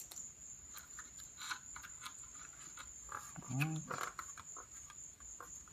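Light handling noises from hands working masking tape over the hinge of a balsa tail surface: small taps, clicks and rustles of tape and wood. A short hummed vocal sound comes about three and a half seconds in, all over a steady high-pitched whine.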